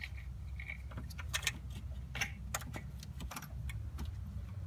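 Hands working among hoses, wiring and connectors in a truck's engine bay: irregular light clicks and rattles of plastic and rubber parts being handled, over a low steady rumble.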